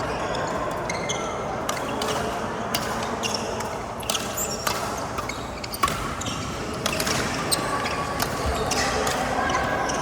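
Badminton rally: sharp cracks of rackets striking the shuttlecock, roughly one every second, over the steady background noise of a sports hall.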